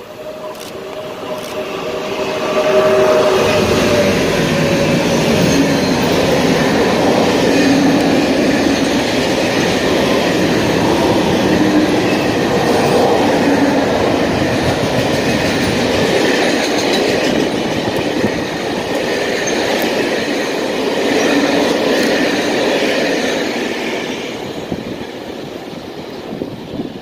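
Freight train hauled by an electric locomotive passing close by, its long string of covered wagons rumbling steadily on the rails. The sound builds over the first three seconds as the locomotive arrives and fades as the last wagons go by near the end.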